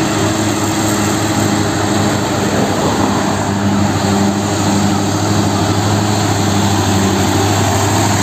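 Truck engine running, a loud, steady, even drone with a low hum.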